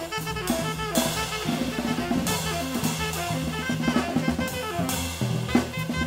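Jazz trio playing live: saxophone holding and moving between sustained notes over plucked upright double bass and drum kit, with several cymbal crashes.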